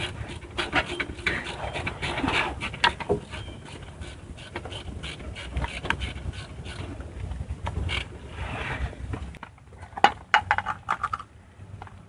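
Irregular scraping, clicking and knocking of metal axle parts and hand tools being handled, with a quick run of sharp clicks near the end.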